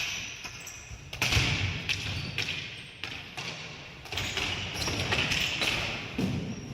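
Ball hockey play: irregular sharp knocks and thuds of sticks hitting the plastic ball and the ball striking the boards, over a steady arena background.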